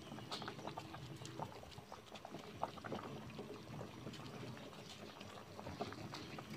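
Pot of clear salmon-head soup at a boil: broth bubbling steadily with a dense run of small pops.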